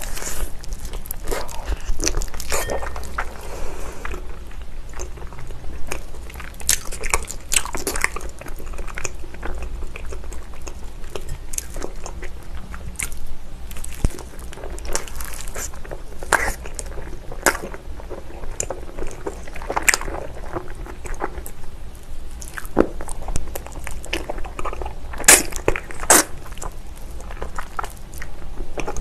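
Close-miked eating: a person biting, tearing and chewing spicy braised beef feet (u-jok), with many sharp, irregular wet clicks and crunches.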